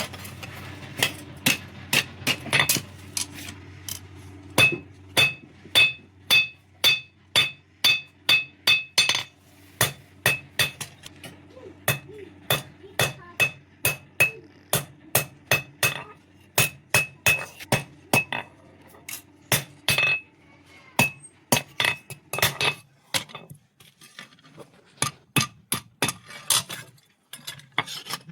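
Blacksmith's hammer striking metal on an anvil at about two blows a second while a sickle blade is forged, many blows leaving a bright metallic ring. A steady low hum runs under the hammering and stops with a brief pause about three-quarters of the way through.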